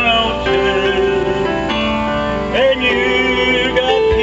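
A man singing a slow song into a microphone with instrumental accompaniment, amplified through a PA system; he holds long notes with vibrato.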